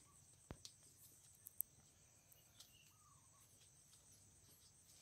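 Near silence with a faint, steady high drone of insects, broken by a few soft clicks in the first two seconds and a faint short chirp about three seconds in.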